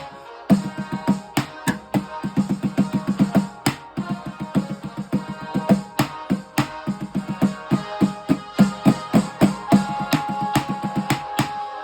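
Music with a fast, busy drum and percussion rhythm under sustained pitched instrument tones.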